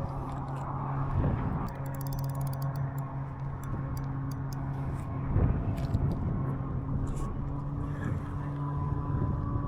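An engine running steadily: an even, low hum that holds one pitch throughout, with a few faint ticks about two seconds in.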